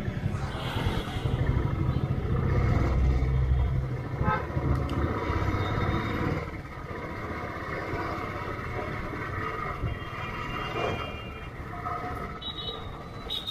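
Royal Enfield motorcycle engine pulling away and running under the rider, loud for the first six seconds or so, then dropping to a quieter steady run. Horns from surrounding traffic beep in the second half, with a short high horn near the end.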